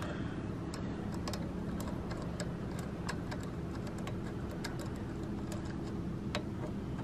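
Faint, irregular small metal clicks and ticks of a flathead screwdriver tip working against the main jet under a small engine's carburetor, over a steady low hum.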